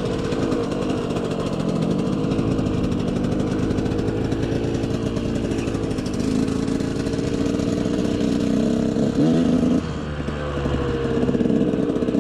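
Two-stroke engine of a KTM 125 SX dirt bike running while riding, its revs rising and falling. Near ten seconds in the revs drop briefly, then climb again.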